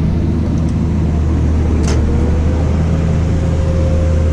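Tractor engine running steadily under load, heard from inside the cab, with a sharp click about two seconds in. After the click a faint whine rises slightly and then holds steady.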